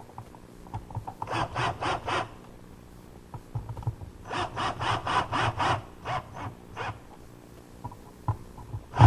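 Hand screwdriver driving an outlet's 1-inch #8 mounting screw back into the box, in short rasping twists. There is a run of about four strokes a second in, then a longer run of about six strokes near the middle.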